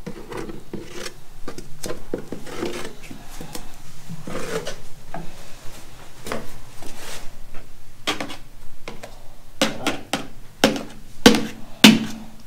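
Handling noise of rubbing and rustling with scattered clicks and knocks, which come thicker and louder in the last few seconds, as a plastic mixing cup of two-part expanding foam is poured and handled in a sump form.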